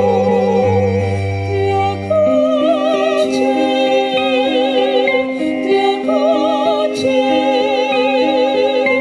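Live music for female voices, violin and piano: long held melody notes with wide vibrato over steady piano chords, in an operatic, lullaby-like style.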